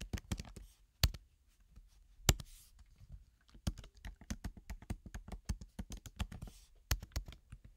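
Typing on a computer keyboard: a quick, uneven run of key clicks, with a few harder keystrokes about a second in, about two seconds in and near the end.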